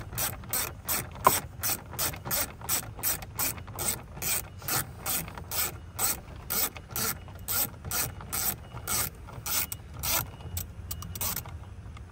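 Hand ratchet wrench clicking steadily, about two to three clicks a second, as a small dashboard bolt is turned. The clicking stops near the end.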